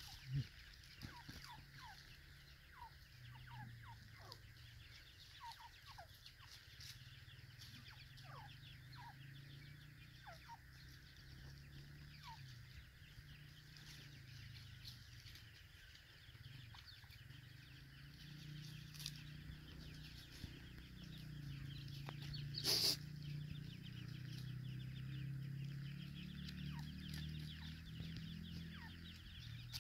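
Grey francolins, adults with chicks, giving soft, short, downward-sliding calls scattered irregularly over a faint steady hiss. A single sharp click about twenty-three seconds in is the loudest sound.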